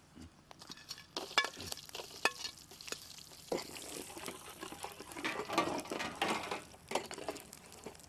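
Whole spices (cinnamon sticks, cloves, cardamom pods, dried red chillies, seeds) sizzling softly in hot oil in an aluminium pot, stirred with a metal ladle that clicks and scrapes against the pot now and then. This is the spices being fried first to release their aroma.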